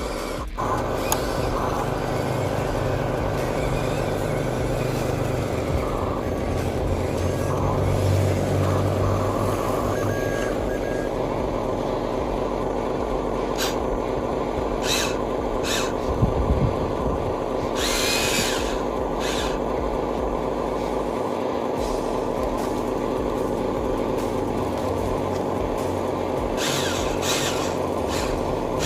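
Radio-controlled model trucks and excavator running: a steady mechanical hum of motors and gearing, broken by a few short hissing bursts about two-thirds of the way through and near the end.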